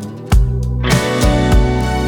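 Background music with a steady beat and guitar, filling out about a second in.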